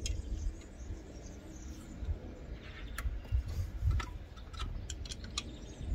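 A few scattered metallic clicks and taps from a ratcheting combination wrench on a rocker-arm adjuster locknut, loosened during a valve-clearance adjustment on the valve gear of a Peugeot TU petrol engine, over a low rumble.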